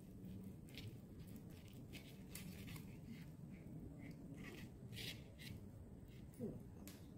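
Steak knife sawing through a cooked steak, faint scraping strokes of the blade against the ceramic plate, with a short squeak about six seconds in as the piece comes free.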